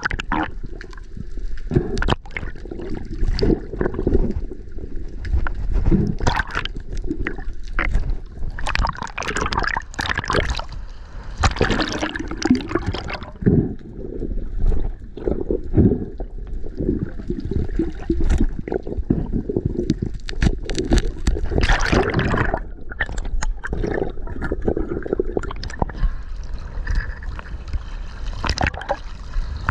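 Water sloshing and gurgling against an underwater action camera as a swimmer moves through the water, in irregular surges. Near the end the camera breaks the surface into splashing water.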